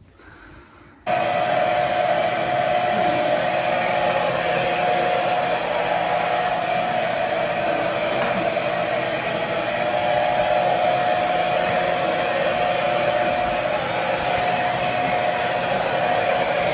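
Handheld hair dryer blowing steadily, with a steady whine over its rush of air. It starts abruptly about a second in.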